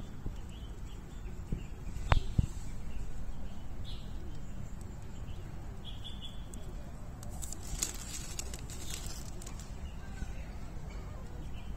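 A hand scratching a cat's fur and rustling the mesh net and dry leaves close to the microphone, with two sharp knocks about two seconds in and a burst of scratchy clicks later. Short bird chirps can be heard faintly in the background.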